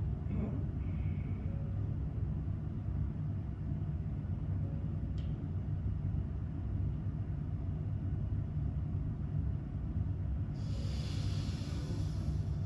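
A steady low rumble runs throughout. Near the end comes a breathy hiss of about two seconds: a person's Ujjayi pranayama exhalation through a narrowed throat, released after a breath hold.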